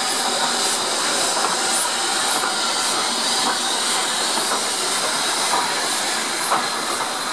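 Steam hissing steadily from GNR N2 0-6-2T tank locomotive No. 1744, with faint light clicks repeating about twice a second.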